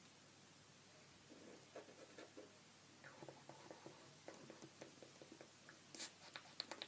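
Felt-tip pen colouring on paper: faint, quick strokes and scratches, with a sharper click about six seconds in.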